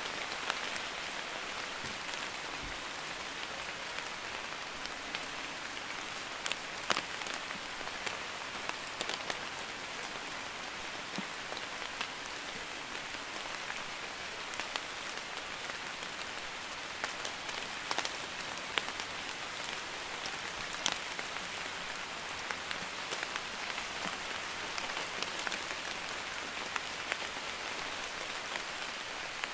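Light drizzling rain falling steadily: an even hiss with scattered, irregular ticks of individual drops.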